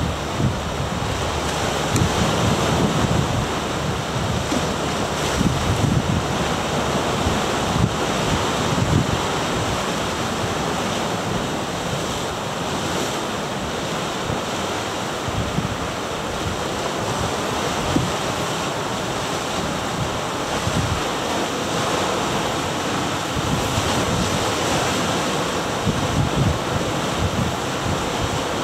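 Ocean surf washing and foaming around granite rocks: a steady rush of water. Wind buffets the microphone in low gusts every few seconds.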